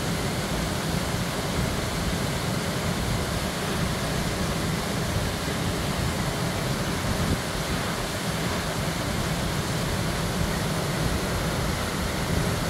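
Steady rush of river water flowing over rocks, an even noise with no separate splashes.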